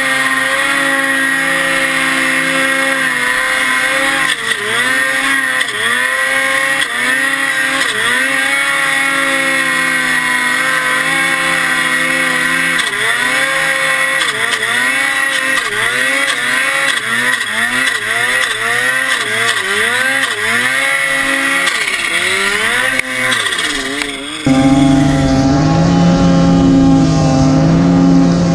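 Snowmobile engine running hard up a steep snow chute, its pitch repeatedly dipping and climbing again as the throttle is worked. About 24 seconds in, the sound cuts to another snowmobile running at steady high revs.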